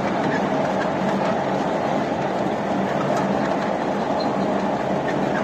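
Ride-on miniature train running steadily along its track, heard from on board: a continuous noise of the wheels on the rails, with a few faint clicks.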